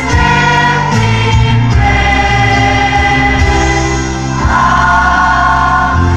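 A large children's choir singing together in held chords that change every second or two.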